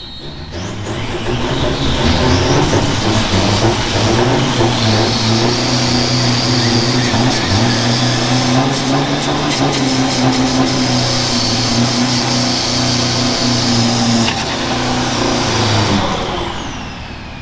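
Modified drag-racing pickup trucks doing a tyre burnout. The engine is held at high revs at a steady pitch while the rear tyres spin on the tarmac with a harsh hiss. The sound builds in the first two seconds and winds down near the end.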